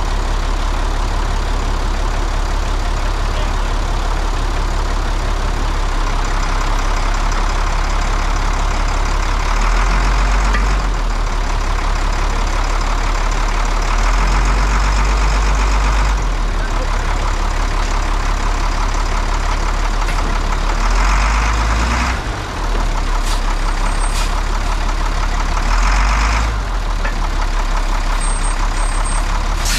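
International 4900 truck's diesel engine running steadily, rising briefly four times a few seconds apart, as the long-idle truck's transmission is tried out.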